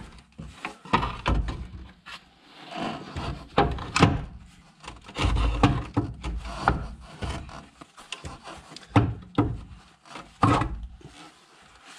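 A new front lower suspension arm (wishbone) being pushed and levered into its mountings under a van: irregular knocks and clunks of the metal arm against the surrounding parts, with rubbing and scraping between them.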